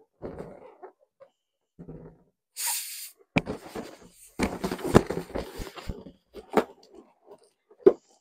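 Inflated latex balloons squeaking and rubbing against each other and against hands as they are handled and twisted together, in irregular bursts. A short hiss comes about two and a half seconds in.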